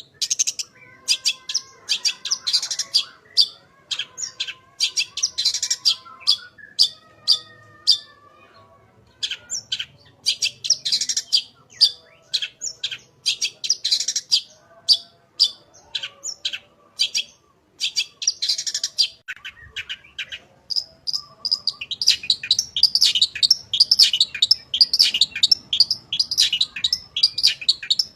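Long-tailed shrike (cendet) singing in full voice: clusters of sharp, high, rapid notes with fainter warbling phrases underneath, running together into a dense, unbroken chatter about two-thirds of the way through.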